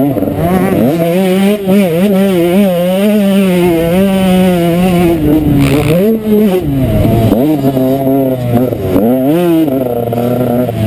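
Motocross bike engine under hard throttle, its pitch climbing and holding, dropping sharply about halfway through, then climbing again and falling near the end as the throttle is worked through the turns and straights.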